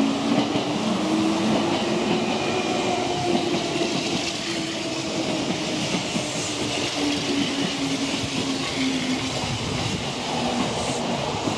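Kintetsu electric trains moving through the station, with a steady rumble and wheels clattering on the rails. A faint motor whine falls in pitch through the second half as the arriving train slows.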